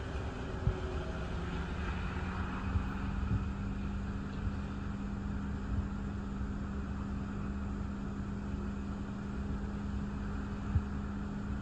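Gusty thunderstorm outflow wind rumbling against a car and the microphone, with a few brief thumps. A steady low hum comes in about a second in.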